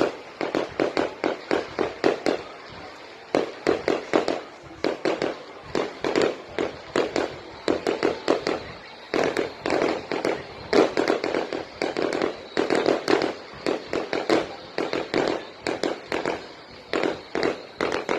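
Fireworks going off in a rapid, irregular run of sharp bangs, several a second, coming in clusters with brief lulls between them.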